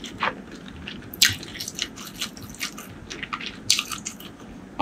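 Close-miked sipping and gulping from a mug: a run of wet mouth clicks and swallows, with two louder gulps, about a second in and again about a second before the end.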